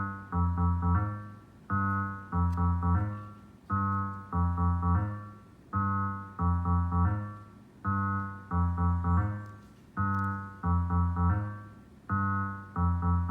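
Novation Circuit groovebox playing a looped electric-piano-style chord pattern from its stock sounds over a low bass line, without drums. A short phrase of one held chord followed by quicker repeated chords comes round about every two seconds.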